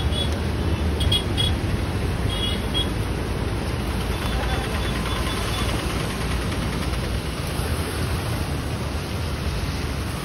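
Steady outdoor rumble of rushing floodwater in a concrete channel mixed with traffic on the bridge road, with a few short high chirps in the first three seconds.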